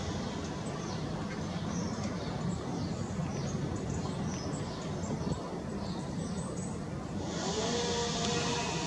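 Small garden songbirds chirping and twittering in quick short calls over a low steady background rumble. Near the end a camera's zoom motor starts to whir with a thin whine.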